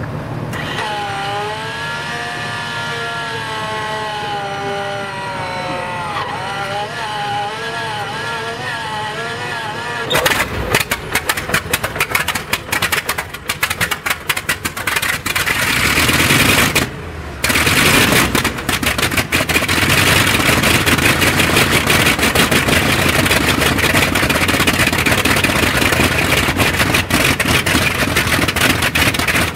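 Bristol Hercules 14-cylinder supercharged radial aero engine being started on a test stand: a wavering whine as it is cranked over for about ten seconds, then it fires with a sudden loud, ragged clatter. It stumbles briefly and then settles into a loud, steady run.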